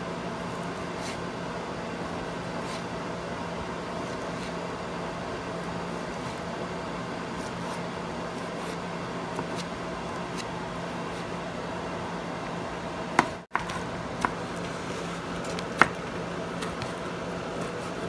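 Steady background hiss and low hum, with faint taps of a chef's knife slicing portobello mushroom on a cutting board. A few sharper clicks of the blade striking the board come about two-thirds of the way in.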